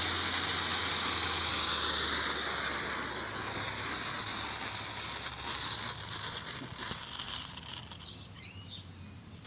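A homemade firework hissing as it burns down, the hiss fading over the first few seconds. A few short bird chirps are heard near the end.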